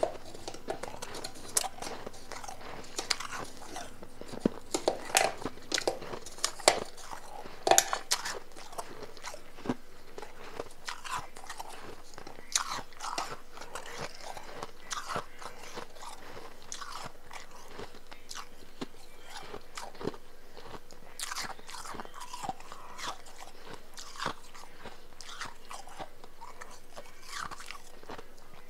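Close-up biting and chewing of powdery blended ice: irregular sharp crunches, loudest and thickest in the first eight seconds, then softer and sparser.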